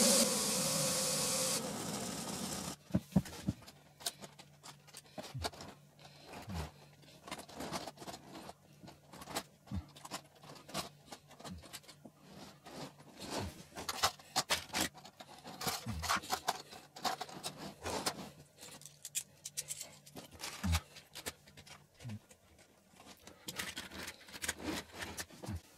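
Plastic LEGO train wagons and bricks clicking, rattling and scraping on the plastic track in many short irregular knocks, as the crashed train is handled. A loud steady hiss opens the clip and drops away in two steps within the first three seconds.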